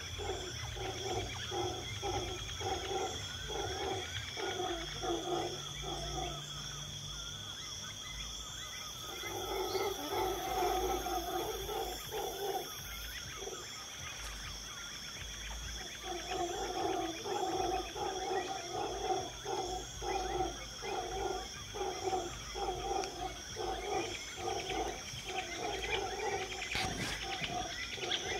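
An unidentified animal calling in long series of short, low, repeated notes, about two a second, in three bouts with pauses between them, over a steady high-pitched insect drone.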